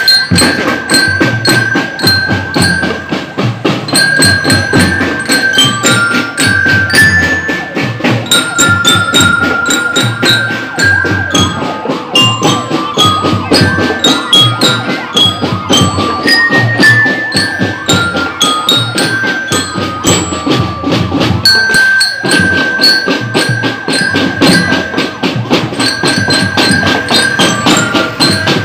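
Marching drum band playing on the move: marching glockenspiels (bell lyres) ring out a melody of metal-bar notes over a steady beat of marching drums. The tune breaks briefly and starts its phrase again about two-thirds of the way through.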